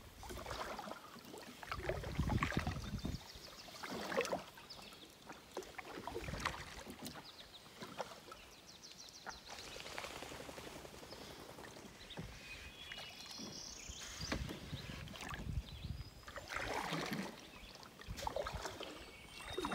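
Paddle strokes from a solo Old Town Pack canoe: the blade dips and pulls through calm water about every two seconds, with swishes and drips.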